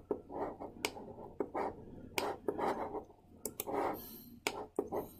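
Scattered computer mouse clicks at irregular intervals, with faint rubbing and handling noise between them.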